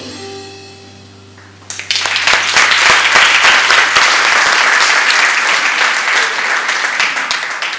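The last chord of a guitar-accompanied song rings out and fades, and about two seconds in an audience breaks into loud, steady applause.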